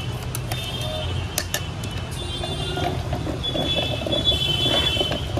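Steady rumble of busy street traffic, with a few sharp knocks in the first second and a half from a wooden churning stick spinning in a steel mug.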